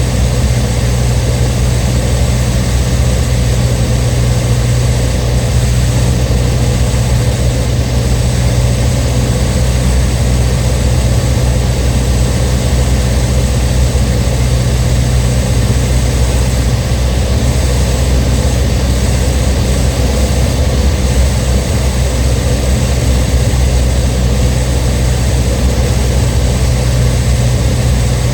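Cessna 152's four-cylinder Lycoming O-235 engine and propeller running steadily, with no change in pitch or level.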